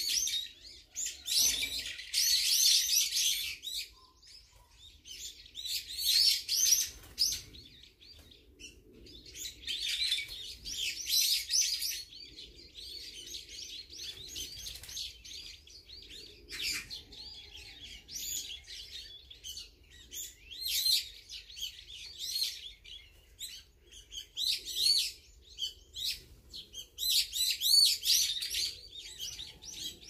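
Brown-eared bulbuls calling: bursts of high-pitched, warbling notes every few seconds, with quieter gaps between.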